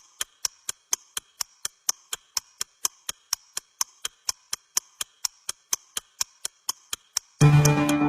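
Steady ticking, about four sharp clicks a second, that stops near the end as music begins.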